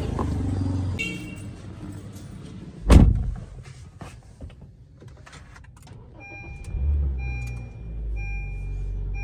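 A car door shuts with a single thud about three seconds in. From about six seconds, a Honda City 1.5's dashboard chime beeps repeatedly while its 1.5-litre engine cranks and starts, then settles into a steady idle.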